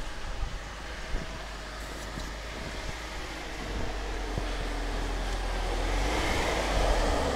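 BMW X5 E53's three-litre petrol inline-six SUV driving into deep snow, a steady low rumble whose engine note grows louder about four seconds in and is loudest near the end.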